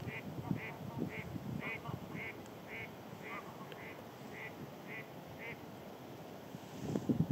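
A bird giving a steady series of short, high calls, about two a second, which stop about five and a half seconds in. Wind rumbles on the microphone underneath, swelling near the end.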